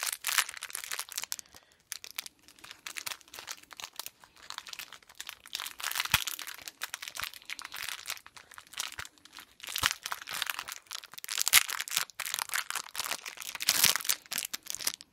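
Small plastic blind-bag sachet of a Holocoons collectible crinkling and crackling as it is handled and torn open, with louder crackles now and then.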